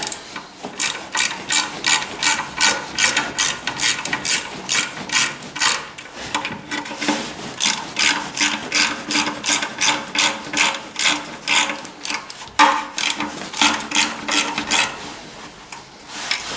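Hand ratchet wrench clicking in a steady rhythm of about two to three strokes a second, with a short break about three quarters of the way through, as bolts are worked out.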